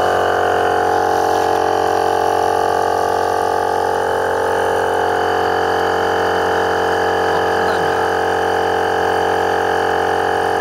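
A 12V twin-cylinder portable tyre-inflator air compressor running steadily under load, building pressure. Its motor and pistons make an even, unbroken drone.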